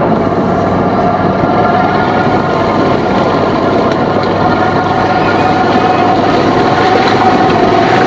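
Engine of an off-road passenger vehicle running steadily while driving, a constant drone over road and rattle noise, heard from aboard.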